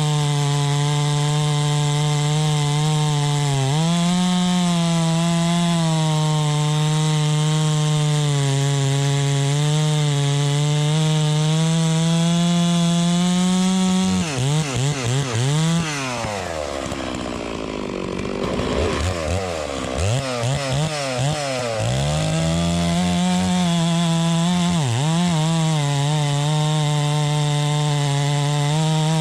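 Two-stroke Neotec MS 660 clone chainsaw running at high speed with a steady whine. About halfway through, its pitch drops and wavers for several seconds as it labours through a cut in wood, then the engine climbs back to full speed, with one brief dip near the end.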